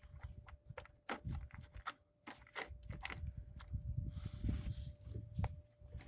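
Plastic air-filter cover being fitted over a new air filter and pre-filter on a lawn mower engine: an irregular run of light clicks and knocks as the cover is pressed and worked into place, the thick pre-filter getting in the way.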